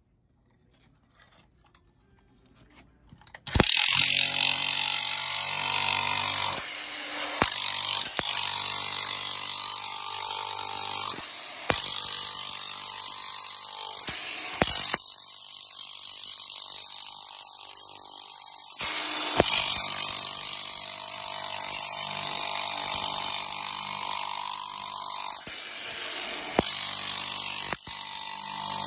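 Milwaukee SDS Max chipping hammer with a scraper blade, hammering and scraping sticky carpet glue off a concrete slab. It starts about three and a half seconds in, then runs steadily with a high whine, stopping briefly several times.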